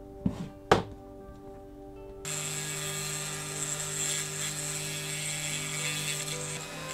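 Two light clicks, then an electric drill starts about two seconds in and runs steadily, drilling into the diecast model to take it apart.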